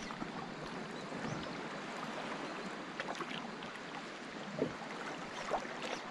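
Calm sea water lapping softly and steadily, with a few faint short clicks and knocks scattered through it.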